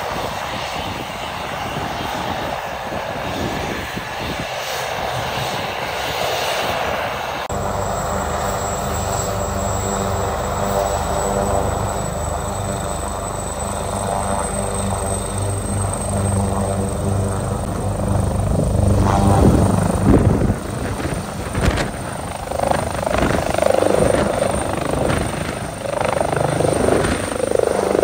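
Maryland State Police AW139 twin-turbine helicopter running on the ground with its rotor turning: a steady rotor throb under a high turbine whine that rises slightly. Near the end the noise grows louder and more uneven as it lifts off.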